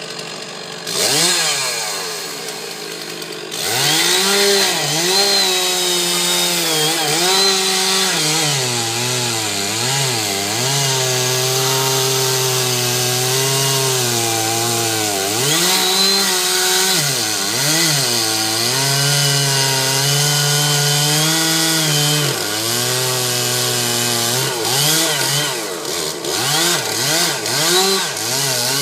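Two-stroke chainsaw revving up, then running at high throttle through wood. Its pitch sags again and again as the chain bogs down in the cut, and it climbs back between dips.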